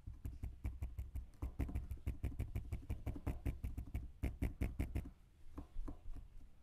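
Rapid fingertip taps, about six a second, pressing a lump of putty down onto a small mould base on a tabletop, each tap a dull knock with a click; a few slower taps follow near the end.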